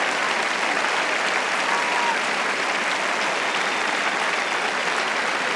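Large stadium crowd applauding steadily.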